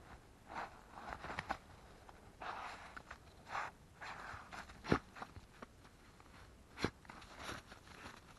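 Faint, irregular crunching footsteps on a trail, a second or so apart, with two sharper thuds about five and seven seconds in.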